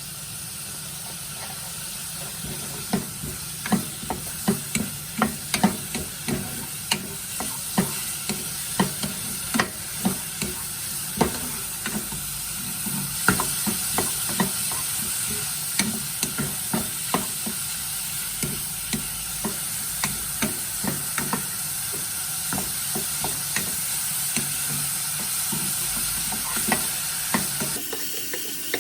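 Food sizzling in a pan while a utensil stirs it, with irregular clicks and taps of the utensil against the pan. The steady sizzle drops off suddenly near the end.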